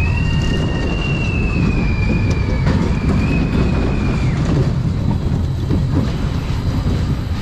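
Spinning roller coaster car running along its steel track with a steady rattling rumble. A high steady squeal rises in at the start, breaks once briefly near the middle, and stops a little after halfway.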